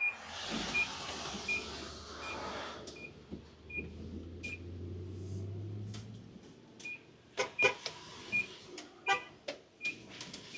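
A vehicle's electronic warning beeper sounding a steady high beep about every 0.7 seconds, over vehicle noise with a low hum that swells in the middle. Short car-horn toots come from another driver in the second half.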